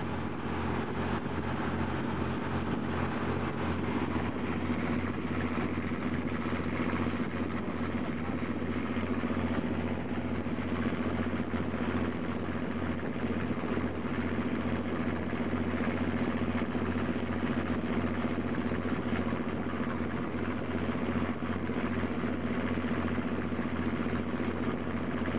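Fishing boat's engine running steadily, a constant low hum with an even tone throughout.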